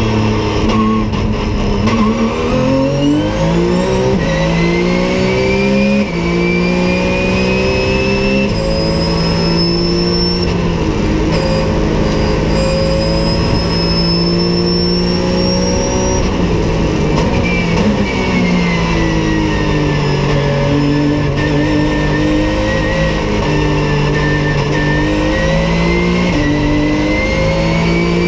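Porsche 911 GT3 Cup race car's flat-six engine heard from inside the cockpit under hard acceleration. Revs climb in steps with quick upshifts, hold high down a long stretch, fall away around the middle, then climb again through the gears.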